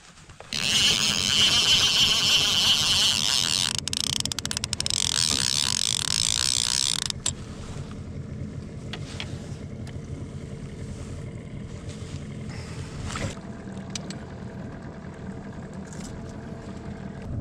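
Boat motor running steadily at low speed. Over it a loud hiss fills the first half and cuts off abruptly about seven seconds in.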